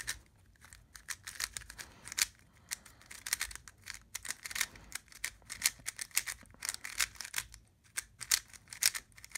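Qiyi Thunderclap V3 M 3x3 speed cube turned rapidly by hand for its first turns out of the box: a quick, irregular run of plastic clicks and clacks as the layers turn. The layers are stiff, a little grindy and too tight, as a new cube is straight out of the box.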